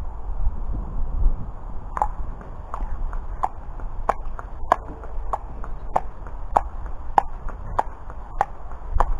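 A thoroughbred horse's hooves clip-clopping on a tarmac road at a walk: from about two seconds in, a sharp, even hoofbeat about every two-thirds of a second. Before that there is only low wind rumble on the microphone.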